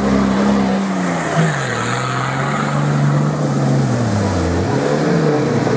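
An off-road 4x4's engine running under load, its revs rising and falling. The pitch drops about a second and a half in, sags again near the end, then picks back up.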